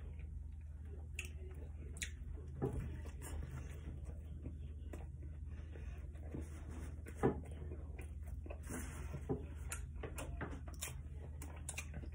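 A person chewing a mouthful of fried fish sandwich with the mouth closed: scattered soft clicks and smacks, a louder one about seven seconds in, over a steady low hum.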